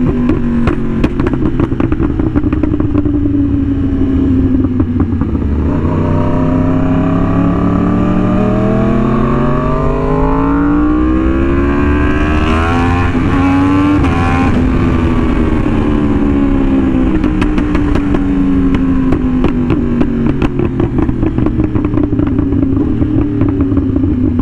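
Yamaha R1M's crossplane inline-four heard from the bike while riding. The engine note sags for a few seconds, then climbs steadily under throttle to a peak about halfway through and falls away again. A second engine's note crosses it in the middle, and short sharp cracks come near the start and the end.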